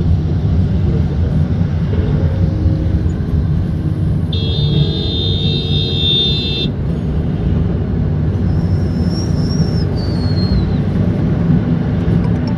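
Steady road and engine rumble heard from inside a moving vehicle in city traffic, with a vehicle horn blaring for about two seconds in the middle. A faint high whistle slides downward near the end.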